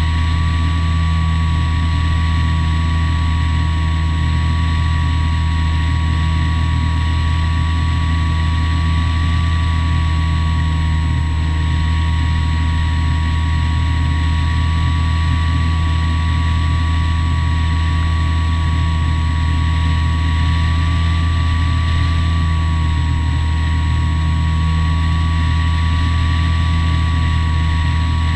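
Skywalker 1900mm FPV plane's electric motor and propeller running steadily in flight, heard from the onboard camera: a constant whine that wavers slightly in pitch over a deep steady drone.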